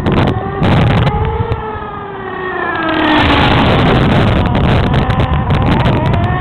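Small nitro (glow-fuel) engine of a radio-controlled car running at high revs, its pitch falling over the first three seconds, then growing louder and rising again near the end.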